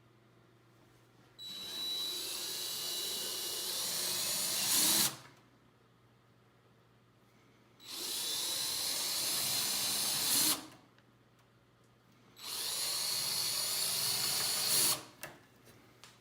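Power drill running three times, a few seconds each, boring holes through a rubber band; each run is a steady high-pitched whir that gets a little louder just before it stops.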